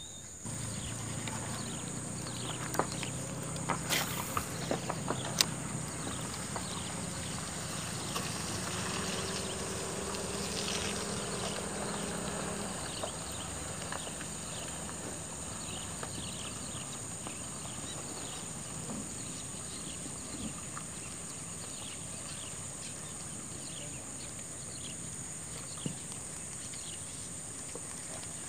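Outdoor pond-side ambience: a steady high insect drone, short high chirps about once a second, and a low hum that stops about halfway through. A few sharp knocks come in the first six seconds.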